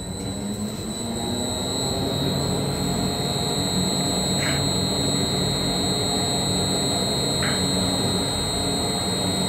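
AMFEC industrial blender's twin mixing agitators running in jog, the drive motor's hum coming up over the first couple of seconds on a slow ramp-up and then holding steady, over a steady high whine. Two faint ticks come a few seconds apart in the second half.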